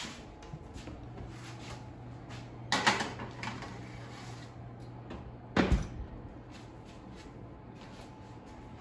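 Wall oven door opening with a clatter as the metal baking sheet goes onto the rack; a low steady hum follows, then about three seconds later the door shuts with a thud.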